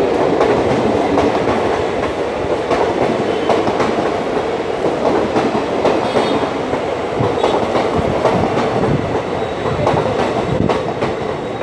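Passenger coaches of an express train running past at speed: a loud, steady rush of wheels on rail, with clickety-clack as the wheels cross the rail joints.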